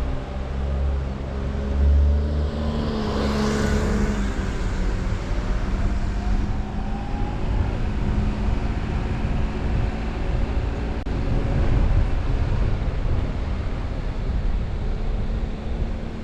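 A car driving, recorded by a camera mounted on it: a steady low engine hum over road and wind rumble, with a brief rushing swell about three seconds in.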